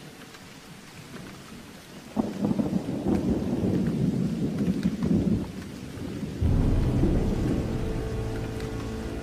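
Recorded thunder over rain, mixed into a soft music track: a crackling rumble breaks in suddenly about two seconds in and dies away after about three seconds, then low sustained music notes come in near the end.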